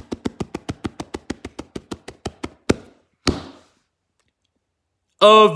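Improvised drumroll of rapid, even taps on a hard surface, about seven a second, ending in two louder knocks about three seconds in. A loud shout starts just before the end.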